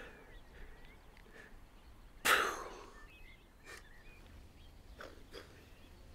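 Quiet outdoor ambience with faint bird chirps. About two seconds in there is one short, loud, breathy noise that fades within half a second.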